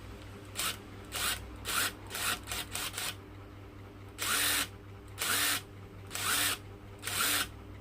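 Bosch brushless cordless screwdriver motor spinning up in repeated trigger pulls: about six quick short bursts, then four half-second runs about a second apart. The trigger switch only works intermittently, which the owner puts down to poor contact in the switch.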